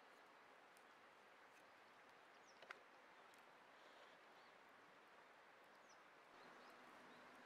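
Near silence: faint outdoor ambience with a few faint high chirps and scattered soft ticks, and one sharp click about two and a half seconds in.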